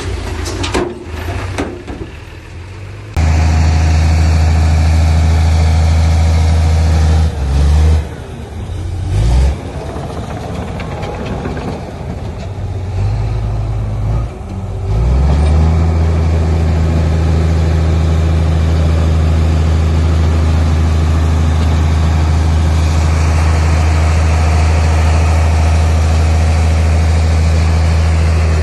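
Heavy diesel engine of earthmoving machinery running loudly and steadily with a deep, even hum. It comes in abruptly about three seconds in, falters briefly a few times around the middle, then holds steady.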